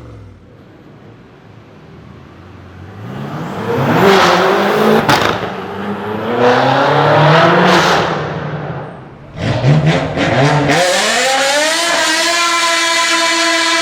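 BMW M5 engine and exhaust under hard acceleration. After a quiet start the note climbs through gears about four to eight seconds in, then rises sharply again and holds a steady high pitch for the last few seconds.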